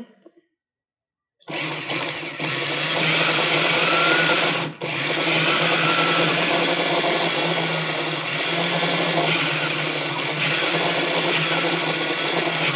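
The robot car's DC motors, one on each side, running steadily. They start about a second and a half in and drop out for a moment just before five seconds in.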